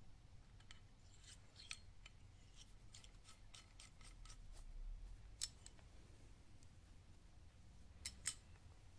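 Quiet, scattered clicks and light taps of oil catch can parts being handled, as a small fitting is turned into the can's head. A sharper click about five and a half seconds in, and two quick ones close together near the end.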